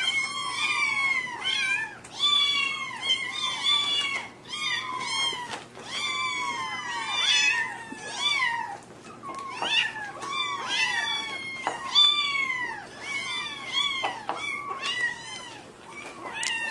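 A litter of young kittens meowing constantly, many high-pitched calls overlapping, each rising briefly and falling away in pitch.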